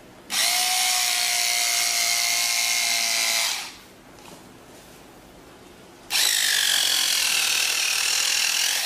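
Handheld electric fabric cutter running in two bursts of about three seconds each, a steady high whine of its motor and blade as it cuts through cloth. The pitch sags slightly during the second cut.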